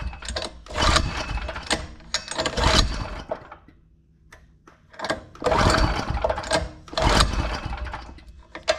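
Predator 212 single-cylinder four-stroke engine being pull-started on choke: about four hard pulls of the recoil starter, each cranking the engine for a second or so, with a pause about halfway.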